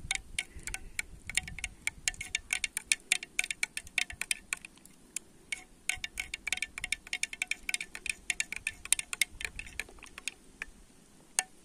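Metal teaspoon stirring sugar into tea in a glazed ceramic mug, clinking rapidly against the inside of the mug. There is a short pause about five seconds in, and the stirring stops with one last clink near the end.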